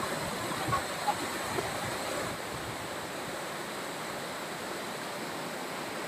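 Monsoon waterfall cascading over rocks: a steady, even rush of water.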